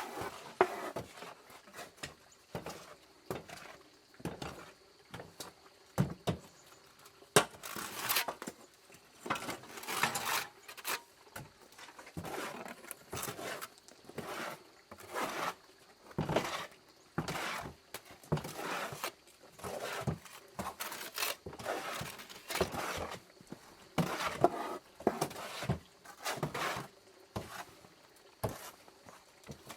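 Wet mortar being mixed by hand with a trowel or hoe after water is added: a run of irregular scraping strokes, roughly one a second.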